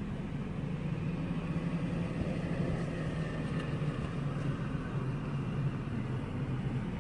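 Vehicle engine running steadily at idle, a continuous low hum.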